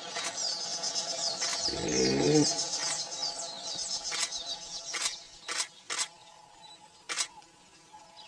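Dense chirring of insects and birds in the high range, with one loud low moaning call lasting under a second about two seconds in. Several sharp clicks follow between about four and seven seconds as the chirring fades.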